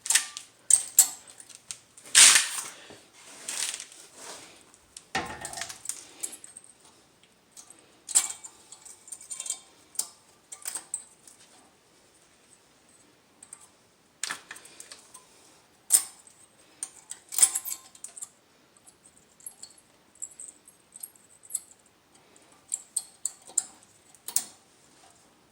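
Thin metal brake-pad hardware clips clicking and clinking as they are pushed and snapped into a caliper bracket, with scattered taps and short scrapes of metal on metal.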